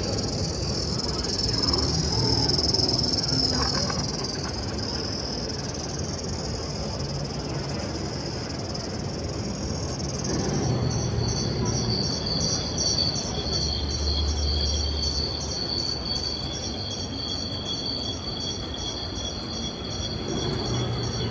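Recorded cricket-like insect chirring played from a giant animatronic insect display. It wavers at first, then about halfway through changes to a regular pulsed chirp about three times a second, over low exhibition-hall noise.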